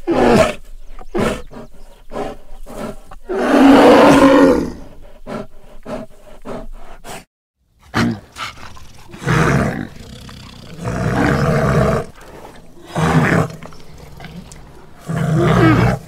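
Black bear vocalizing in a series of separate calls. The longest and loudest call comes about four seconds in. A brief break of dead silence falls about halfway through, and shorter calls follow it.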